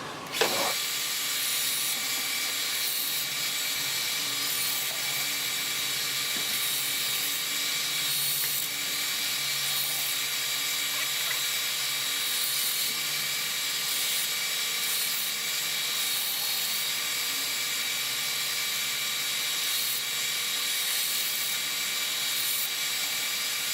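Shop power tool running steadily while the corners of a small cedar box are rounded over against it. The tool's pitch and level waver slightly as the wood is pressed and rolled.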